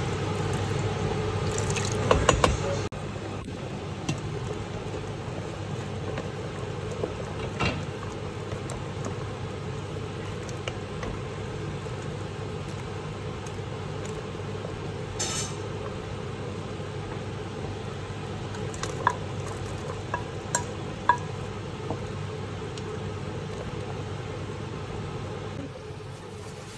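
A stainless steel stockpot of pork sinigang simmering under a steady low hum, stirred with a wooden spoon that knocks against the pot a handful of times, with a cluster of knocks a little before two-thirds of the way through.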